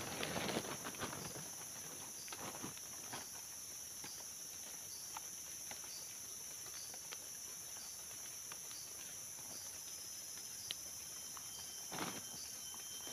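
Steady high-pitched drone of forest insects, with a few short rustles and light knocks from someone moving in dry leaf litter, just after the start and again about twelve seconds in.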